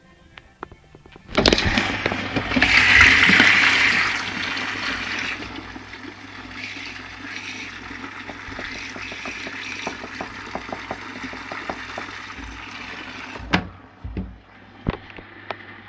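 Washing machine filling, water rushing into the drum: it starts suddenly about a second and a half in and is loudest soon after, then runs on more quietly with scattered clicks and rattles, and stops after a sharp click near the end.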